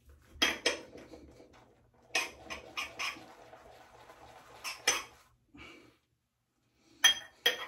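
Boar-hair shaving brush working soap into lather in a hard container: irregular clacks of the brush against the sides over a wet, frothy swishing, with a short pause near the end. The lather is still thin and very wet because the brush was waterlogged.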